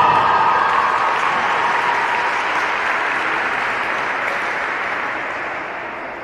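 Audience applause that slowly fades away, with the last held note of the skating program music dying out just after the start.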